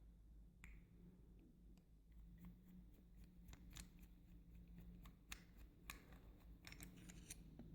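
Faint, scattered small metallic clicks and ticks as the Mul-T-Lock G-series padlock is handled and taken apart, more frequent in the second half, over a low steady hum.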